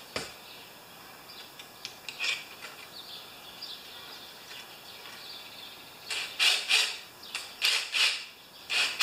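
Cordless drill-driver run in short bursts, about two a second, near the end, after a few faint clicks of handling. It is driving a carburetor mounting bolt on a Briggs & Stratton mower engine, and the bolt is not catching its thread.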